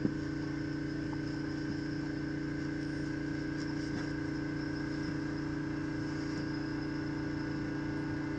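Steady machine hum holding several fixed tones, with a small click at the very start.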